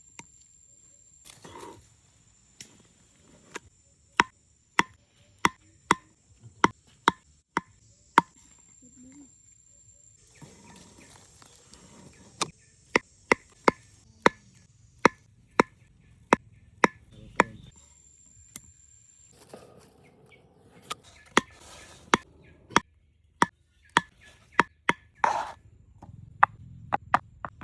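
Repeated sharp chopping strikes, about one to two a second, in runs broken by short pauses.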